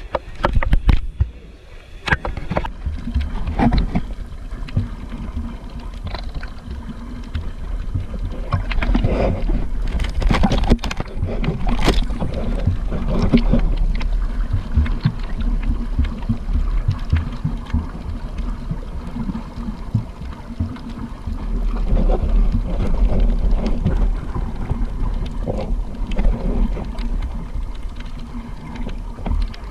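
A boat's engine running steadily under way, with wind buffeting the microphone and water splashing against the hull, plus occasional knocks.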